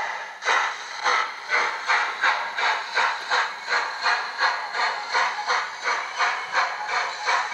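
Zimo sound decoder in a Hornby OO gauge model of the LNER A4 locomotive Bittern, playing a steam exhaust chuff through the model's speaker as the loco runs. The chuffs come in a steady beat of about three a second. A continuous steam hiss dies away as the chuffing starts, about half a second in.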